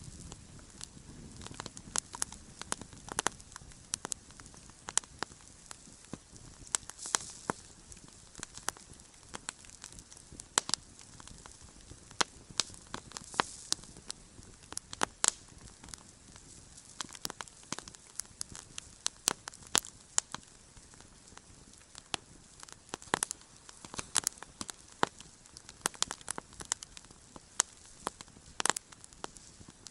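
Wood campfire burning with frequent irregular sharp crackles and pops over a low steady hiss.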